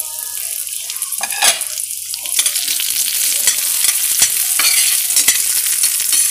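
Chopped onion and garlic sizzling in hot oil in a metal pan while a metal spoon scrapes and clicks against the pan as they are stirred. The sizzle grows louder about two seconds in.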